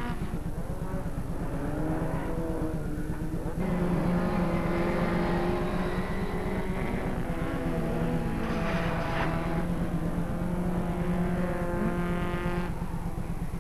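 Small racing cars' engines revving up and down as the cars slide through corners, pitch rising and falling with the throttle, with a short rush of noise about eight and a half seconds in.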